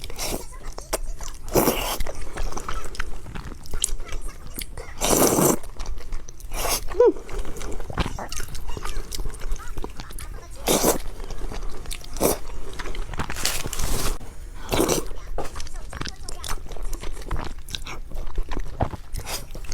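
Close-miked eating sounds: a person biting into and chewing a soft xuemeiniang (cream-filled mochi), with wet mouth noises and a number of louder brief bursts, the biggest about five seconds in.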